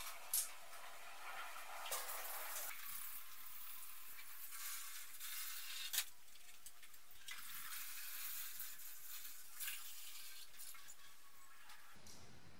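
Cleaning fluid being poured from a plastic jerry can into a steel parts-washer tank: a steady, faint splashing hiss, with a few sharp knocks from the can.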